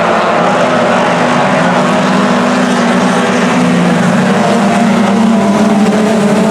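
A pack of four-cylinder dirt-track race cars running at speed, several engines sounding at once in overlapping pitches, loud and steady.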